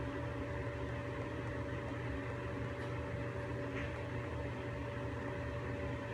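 Ceiling-mounted centrifugal exhaust fan running steadily: a constant airy rush over a low hum, with a thin steady tone above it.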